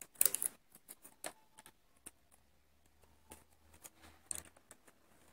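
Scattered small metallic clicks and taps from a hand tool and the needles on a Passap knitting machine's needle bed, as stitches are bound off by hand.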